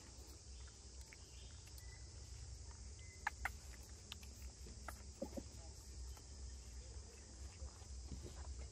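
Faint forest ambience: a steady high-pitched insect drone over a low rumble, with a few short high chirps about three and five seconds in.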